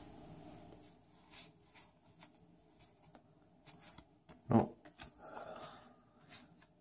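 Light rustling and soft clicks of trading cards and foil booster packs being handled and flipped through. About four and a half seconds in comes one short vocal sound, falling in pitch, which is the loudest moment.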